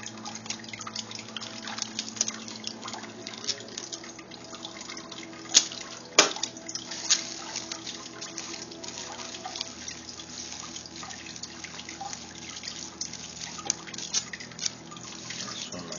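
Bubble wrap and plastic bendy straws being handled and pressed, giving a constant irregular crinkling and crackling of plastic. There are two sharp snaps about half a second apart, roughly a third of the way in, over a faint steady hum.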